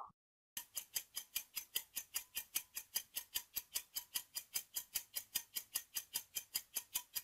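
Countdown-timer ticking sound effect: a steady clock-like ticking at about five ticks a second, starting about half a second in.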